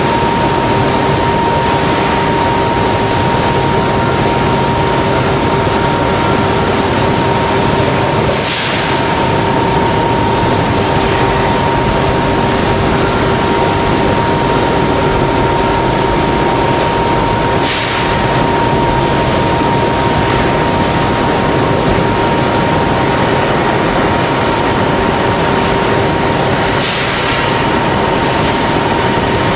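Steady, loud drone of foundry machinery with a constant high whine. Faint short swishes recur about every nine seconds.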